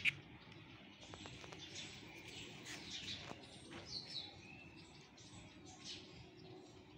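Faint birds chirping in the background, a few short chirps, over a low hiss, with scattered soft clicks of small parts and a cloth being handled.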